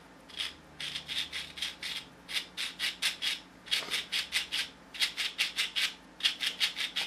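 HPI Savage SS differential turned by hand, its freshly greased four-pinion spider gears clicking in quick runs of ticks, about five a second, as the gears work the grease in.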